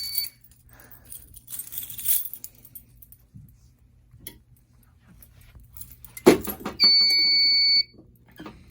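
Fire alarm control panel's piezo buzzer sounding a steady high-pitched beep during a panel reset. It cuts off just after the start and sounds again for about a second near the end, as trouble after the reset waiting to be acknowledged. A faint rattle comes about two seconds in and a knock just before the second beep.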